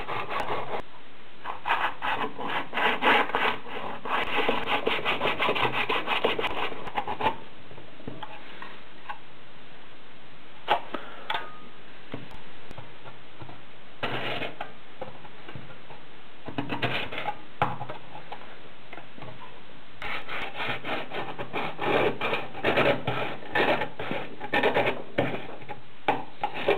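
Fine-toothed razor saw cutting through the plastic body of a Polaroid pack-film camera in quick back-and-forth strokes. It comes in two long spells, with a quieter stretch of a few scattered strokes and knocks between them.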